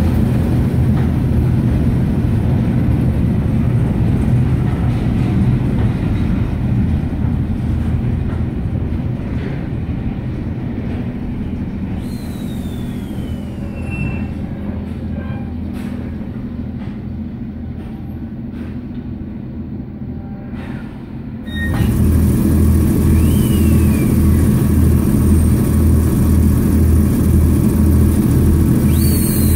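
Class 09 diesel shunter's English Electric six-cylinder engine running as it hauls coaches past, with the rumble and scattered clicks of the rolling coaches fading away. About two-thirds of the way through it cuts to the shunter's engine idling close by, a louder, steady pulsing throb.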